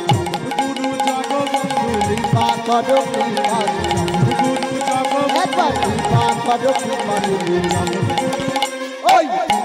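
Bengali kirtan instrumental interlude: a hand drum with pitch-bending bass strokes and rapidly clicking hand cymbals over sustained melody notes.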